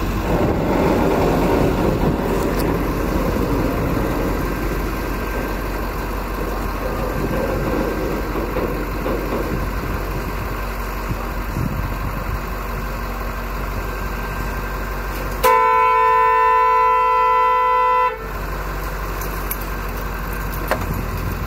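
Loaded freight hopper cars rolling slowly past, a steady noise of wheels on rail. About two-thirds of the way through, a truck horn sounds in one long steady blast of nearly three seconds and cuts off suddenly: a driver honking impatiently at the passing train.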